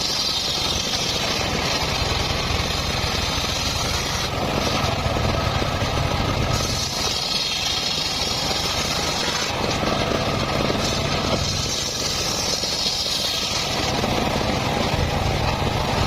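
Circular saw running steadily and cutting mahogany wood, a higher cutting whine swelling in and fading out over stretches of a few seconds on top of the machine's low running rumble.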